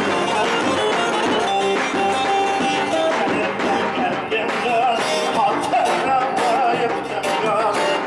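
Turkish halay line-dance music played live on an electronic keyboard through loudspeakers. The lead melody bends and wavers in pitch in the second half.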